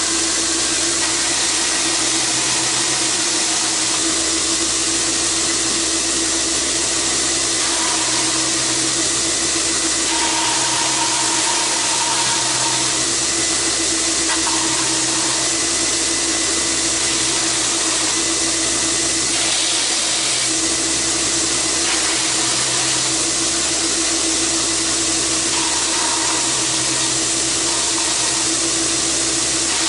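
Belt grinder and shop fans running with a steady whir and hum, while a Kydex piece is pressed against the sanding belt now and then for shaping.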